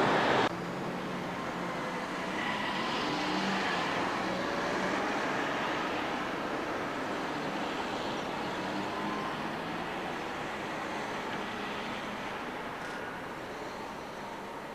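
City street traffic: cars running and passing on the road, a steady hum that slowly grows quieter. A loud rushing noise cuts off abruptly about half a second in.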